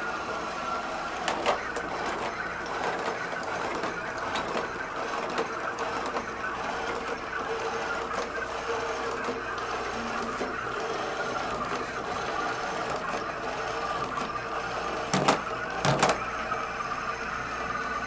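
iRobot Create robot's drive motors whirring steadily as it drives over carpet, with a few sharp clicks, the two loudest near the end.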